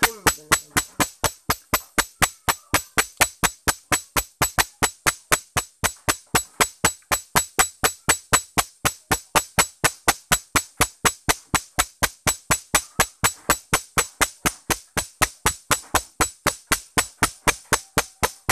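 Sharp knocks repeating at a perfectly even pace, about four a second, without a break.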